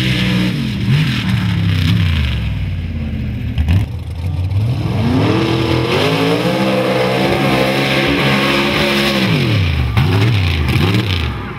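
Mud trucks' engines revving hard through the mud. The pitch falls over the first couple of seconds, climbs again about five seconds in, holds high for several seconds, then drops away near the end.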